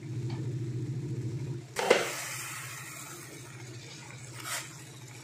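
Pot of broth boiling on the stove under a glass lid: a steady low rumble that eases after the first second and a half. There is one sharp knock about two seconds in and a short hiss near the end.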